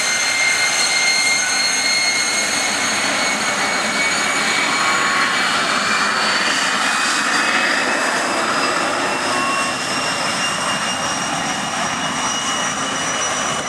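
Gloster Meteor T.7 jet trainer taxiing, its twin Rolls-Royce Derwent turbojets running at low power. A steady high-pitched jet whine of several tones sits over the exhaust roar, and one of the tones climbs slowly in pitch.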